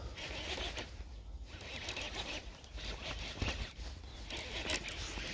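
Baitcasting reel being cranked in short, uneven spells of whirring as a soft bait is retrieved.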